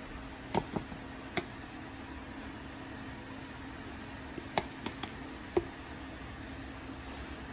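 Light clicks and knocks from handling a stick blender with its motor switched off: the metal blending shaft is lifted out of a plastic container and separated from the motor body. A few knocks come in the first second and a half and a cluster about four and a half to five and a half seconds in, over a steady faint low hum.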